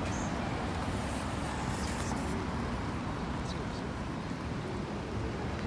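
Steady city street noise heard while walking: a low traffic rumble with faint voices of passers-by.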